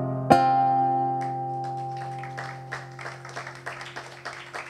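Acoustic guitar strums a final chord about a third of a second in and leaves it ringing as it slowly fades, ending the song. Scattered clapping starts about a second later and thickens into applause.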